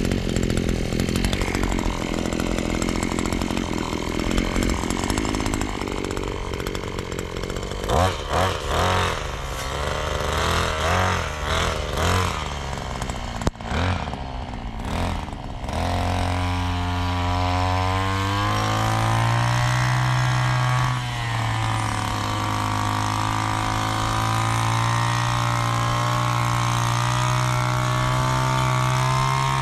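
Brush cutter's small engine running: revving in uneven surges for the first half, then settling about halfway through into a steady drone, with one brief rise in pitch.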